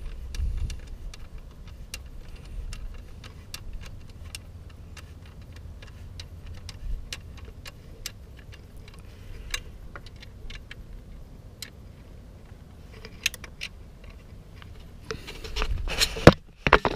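Repeated light metallic clicks, roughly three a second, from hand tools working the radiator guard's bolts, with a louder clatter of handling near the end.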